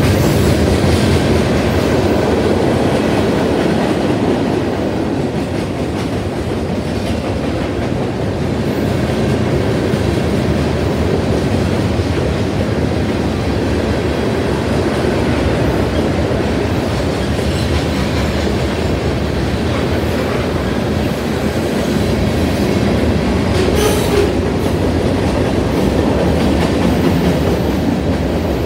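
Freight train cars rolling past: a steady noise of steel wheels running on the rails.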